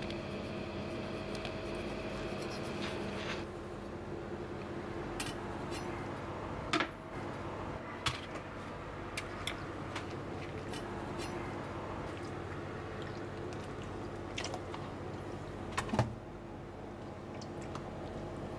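Steady kitchen hum with a few sharp clicks and knocks from a knife and hands working on a plastic cutting board, as a sea squirt is cut and peeled open. The loudest knocks come about a third of the way in and near the end.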